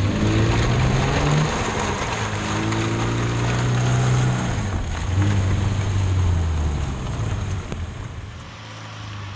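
Scion FR-S's 2.0-litre flat-four boxer engine revving hard in repeated rising and falling pulls as the car drifts on wet pavement, with a steady hiss of tyre spray. The revs ease off briefly near the end before picking up again.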